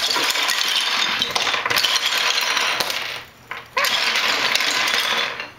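Wooden Lincoln Logs toy logs clattering down onto a wooden tabletop as a log fort is knocked over, a dense rattle of many small wooden knocks. After a short pause about three seconds in, more clatter as the loose logs are shoved around the pile.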